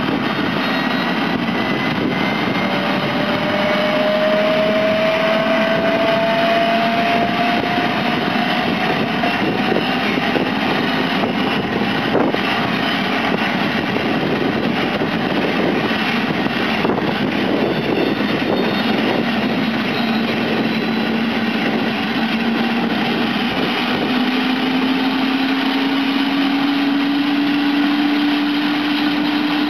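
Eurocopter AS350 B2 helicopter running on the ground with its Turbomeca Arriel turboshaft engine and main rotor turning: a steady loud rush, with a turbine whine that slowly rises in pitch at times.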